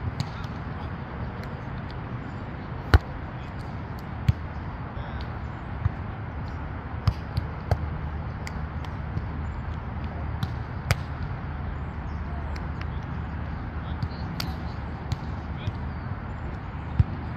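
Sharp smacks of a volleyball being hit, coming at irregular intervals a second or more apart, over a steady low rumble.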